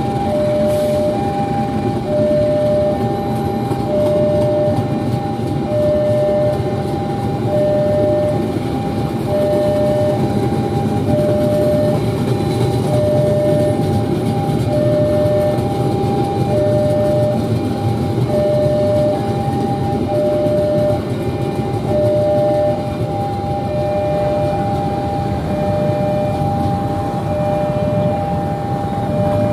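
Railway level-crossing alarm sounding its two-tone warning, a higher and a lower tone taking turns about once a second, over the continuous rumble of a train running past on the tracks.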